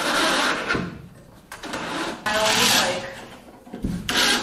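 Cordless drill driving screws into a wooden roof truss to fix a light fixture in place, in short runs with pauses between them.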